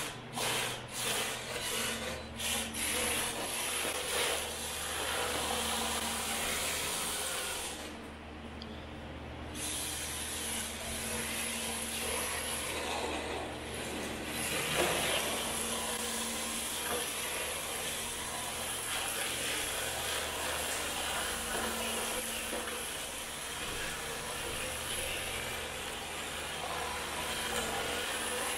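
MST rear-wheel-drive RC drift car's hard tyres scrubbing and rasping across concrete as it slides. There are a few short pulses in the first three seconds, a brief lull about eight seconds in, and then a steady run of sliding.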